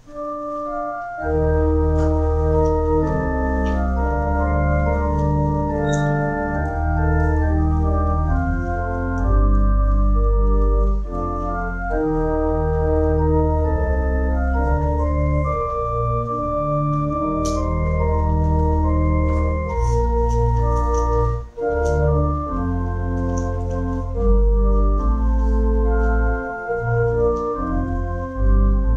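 Church organ playing, its deep bass notes coming in about a second in and holding under the changing chords.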